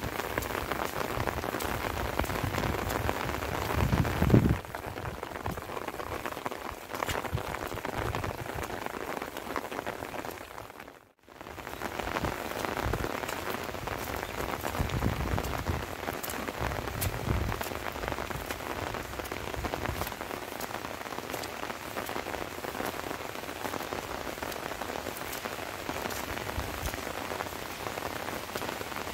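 Steady light rain falling and pattering on surfaces, with fine individual drop ticks. A brief louder low rumble comes about four seconds in, and the sound cuts out for a moment near the middle.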